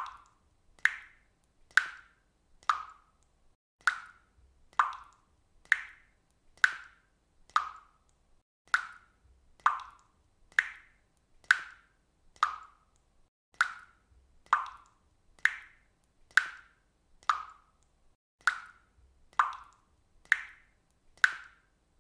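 Water dripping from a faucet, single drops plopping into water at a steady pace of about one a second, each a short, bright plop.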